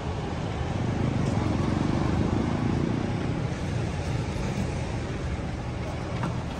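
Steady rumble and road noise of a moving vehicle, even throughout.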